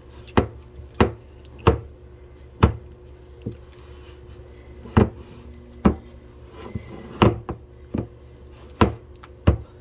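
A utensil knocking against the bowl about a dozen times at uneven intervals, roughly once a second, as thick, cooked plantain fufu is pressed and turned against the bowl's side.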